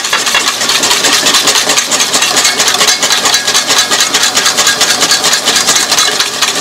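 Wire whisk beating rapidly against a stainless steel bowl in a fast, even rhythm, whisking vinaigrette as the oil is drizzled in to emulsify it.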